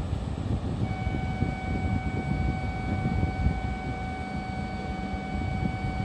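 A steady electronic warning tone sounds at one unchanging pitch from about a second in until the end, as the doors of a waiting E7-series Shinkansen close for departure. It plays over a low, steady rumble.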